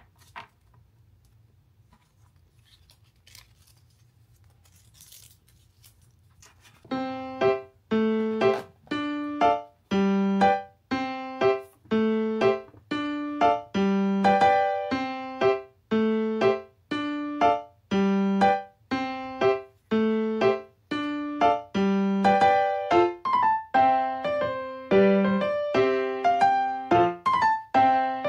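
Near silence for the first seven seconds or so, then background music starts: a simple piano tune with a note or chord about once a second.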